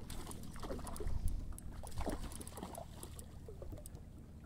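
Hooked thick-lipped grey mullet splashing at the water's surface: irregular small splashes and gurgles, busiest in the first couple of seconds and dying away, over water lapping against the pontoon and dinghy.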